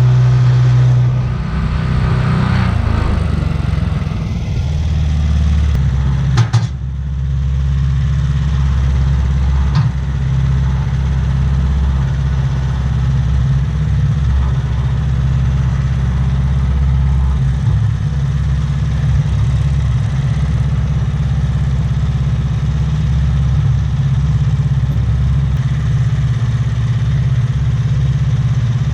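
Engine of a Wood-Mizer LT15START portable sawmill running steadily, with one sharp knock about six and a half seconds in.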